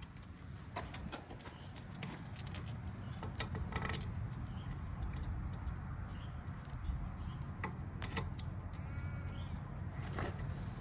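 Steel lug bolts clinking and scraping as they are handled and set into a tractor's dual-wheel hub by hand: scattered sharp metallic clicks with a bright ring, over a steady low rumble.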